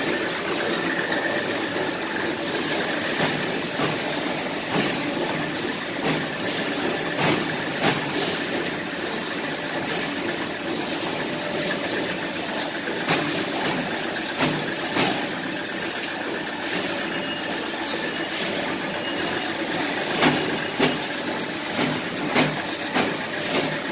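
Automatic paper plate forming machine line running: a steady mechanical hum of motors and conveyor belts with a faint high whine, broken by sharp clacks at irregular intervals.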